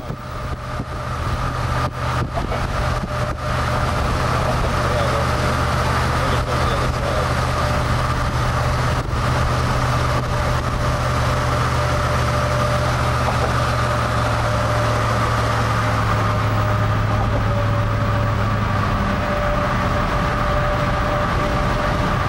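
Steady road noise inside a moving car: a low engine and tyre drone with a thin steady whine above it. A few sharp clicks sound in the first few seconds.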